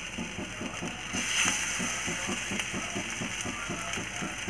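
Oil sizzling in a non-stick pan as besan cutlets shallow-fry, with a brief louder sizzle about a second in as a cutlet goes into the hot oil. Under it runs a fast, regular low ticking, about four to five beats a second.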